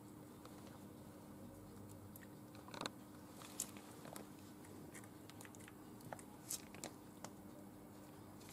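Faint, scattered soft crinkles and clicks as batter is squeezed from a plastic piping bag into paper cupcake liners, over a faint steady hum.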